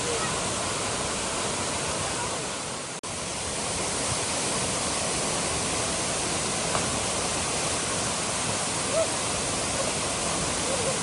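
Tall tropical waterfall pouring into its pool: a steady, dense rush of falling water. It cuts out for an instant about three seconds in.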